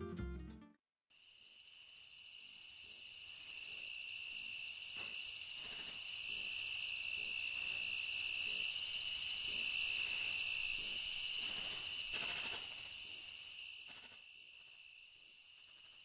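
Crickets at night: a steady high trill with louder short chirps roughly once a second, fading toward the end.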